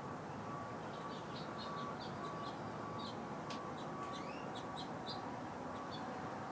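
Small birds chirping, a run of short high notes and one brief rising call, over a steady background hiss.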